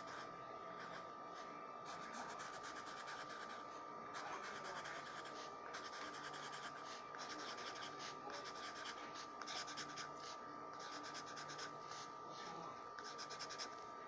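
Pencil scratching on sketchbook paper in bursts of quick, short strokes with brief pauses, drawing rows of small curved scales.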